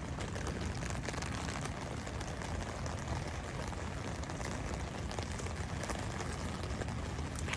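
Steady rain falling, a dense patter of small drop ticks over a low rumble.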